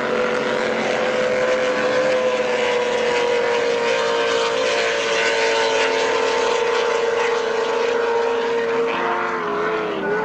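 Racing power boat's engine running flat out at high speed, a loud steady high-pitched tone that slowly drops in pitch and wavers near the end, over the hiss of spray and exhaust.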